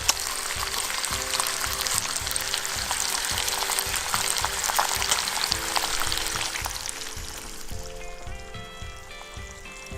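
Bacon and eggs frying in a pan, a steady sizzle with crackles that dies away over the last few seconds, over background music with a soft beat.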